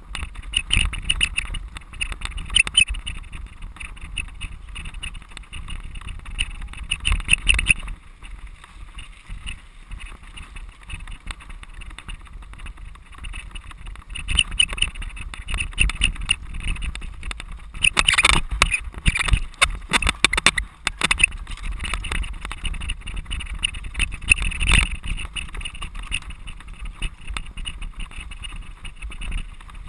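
Cyclocross bike ridden hard over a bumpy dirt course, heard through a camera mounted on the bike: continuous rattling and small knocks from the bike and the mount, with wind noise. It eases off for a few seconds, then clatters hardest for a few seconds past the middle.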